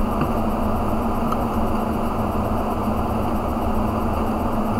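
Steady mechanical hum: an even whir with a constant low drone, unchanged throughout.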